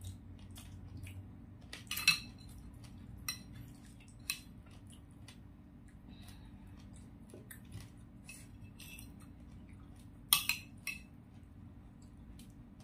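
A metal spoon clinking and scraping against plates as sauce is scooped and spooned onto food: a few sharp clinks, the loudest about two seconds in and again about ten seconds in.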